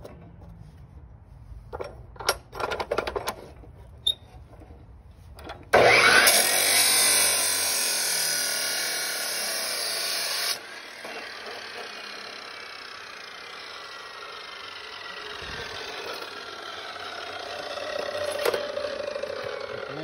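A few knocks and clatters, then about six seconds in a power tool starts suddenly and cuts loudly for about five seconds before easing off and running on more quietly.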